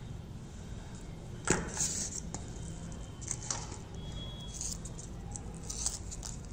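Boiled potatoes being peeled by hand: soft, scratchy rustles of fingers pulling the skin away, several times. A single sharp knock about a second and a half in is the loudest sound.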